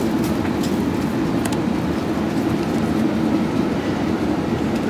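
Steady Airbus A380 cabin noise in flight: a constant low rumble with a rush of air, with a few light ticks in the first second and a half.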